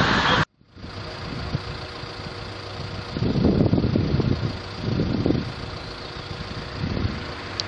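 A car driving past, cut off abruptly about half a second in; then outdoor traffic noise with a motor vehicle's engine running and low rumbles swelling a few times.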